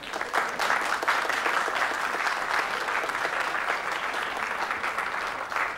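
Audience applauding: dense clapping from a room full of people that starts at once and eases slightly near the end.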